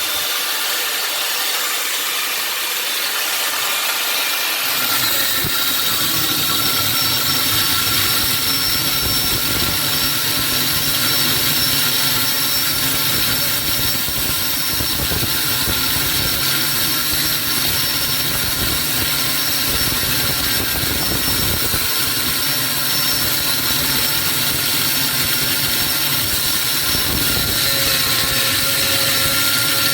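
A power tool running steadily while cutting into the washing-machine motor, getting louder and fuller about four and a half seconds in.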